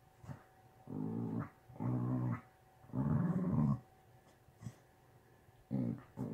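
Dogs play-growling as they wrestle: four short, low growls about a second apart, the third the longest and loudest, with a last one starting near the end.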